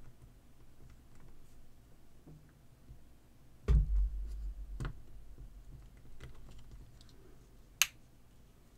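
Small plastic clicks and handling noises as the halves of a headset cable's inline control housing are pressed together by hand. There is a heavy thump about a third of the way in, a second knock a second later, and one sharp click near the end.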